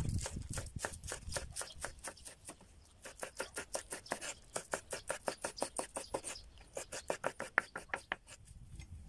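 Chef's knife chopping green onions on a wooden cutting board: quick, even cuts, each a sharp tap of the blade on the board, about five a second. The cuts pause briefly past six seconds and stop near the end. A low rumble fades out in the first second.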